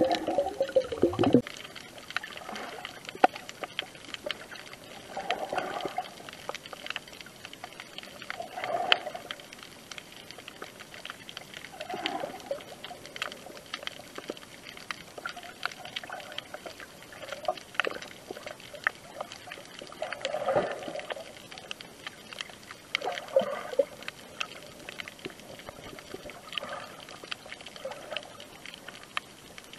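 Muffled underwater water sounds heard through an action camera's waterproof housing: sloshing and bubbling, louder in the first second or so, then soft swells every few seconds with scattered small clicks.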